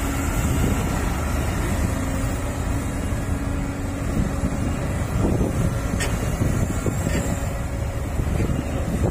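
Sumitomo hydraulic excavator's diesel engine running steadily under load as the machine digs into a bank of earth and lifts a full bucket, with wind buffeting the microphone.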